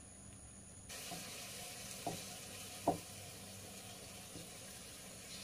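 Steady hiss of background noise that comes in abruptly about a second in, with two short clicks, the second one louder.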